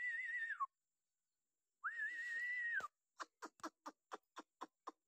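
Two long, slightly wavering high whistles, then a quick run of short clicks, about four a second.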